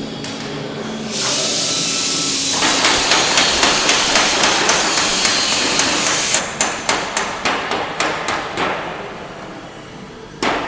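Pneumatic rivet gun hammering on aluminium aircraft structure: a continuous rattling burst for about five seconds, then a run of quick separate strikes, several a second, that fade away.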